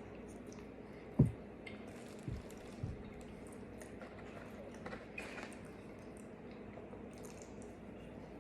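A person chewing food with wet, squishy mouth sounds and small smacks over a steady low hum. Three dull thumps are heard, the loudest about a second in and two softer ones around two and three seconds in.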